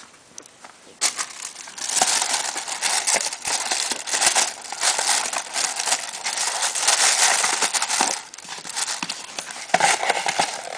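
Paper rustling and crinkling as items wrapped in tissue paper are pulled out of a paper shopping bag, starting about a second in, easing off after about eight seconds and picking up again near the end.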